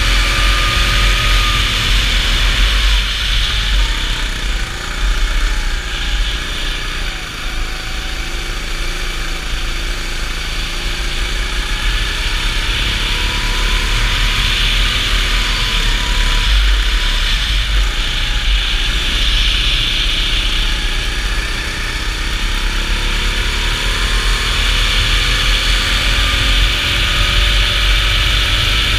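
Racing go-kart engine heard from onboard, its revs falling and rising through corners and climbing steadily over the last several seconds. Heavy wind rumble on the onboard microphone runs under it.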